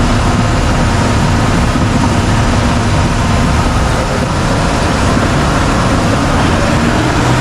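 Amphibious Duck tour vehicle's engine running steadily under way, a loud continuous rumble with a low hum.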